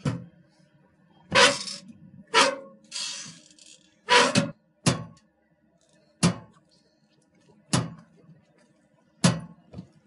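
Heavy squeaks, short and sharp, repeated about eight or nine times: several in quick succession in the first half, then single squeaks roughly every second and a half.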